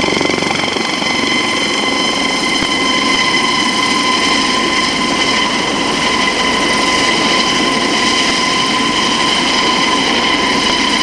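Rescue helicopter running, a steady high whine from its turbine over dense rotor and engine noise.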